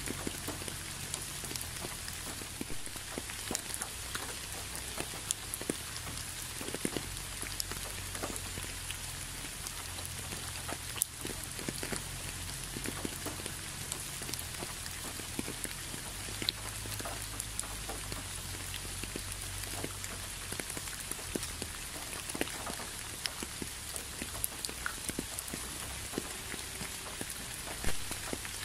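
Steady rain falling, a constant hiss with many individual drops tapping close by at irregular moments.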